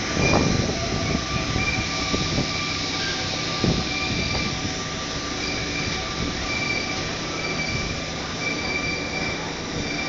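Paris Métro line 4 MP89CC rubber-tyred train pulling away from the platform into the tunnel: a steady rolling rumble with thin high tones coming and going, and two thumps in the first four seconds.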